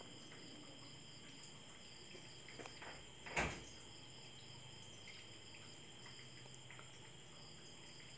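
Faint background with a steady high-pitched drone made of several thin tones, a few faint clicks, then a single sharp knock about three and a half seconds in.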